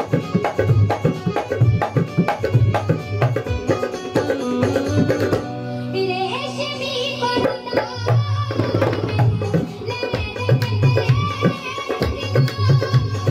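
Dholak played fast by hand, deep bass strokes mixed with sharp slaps, against a melody. A few seconds in, the drumming stops for about three seconds, leaving only held melodic notes, then comes back in.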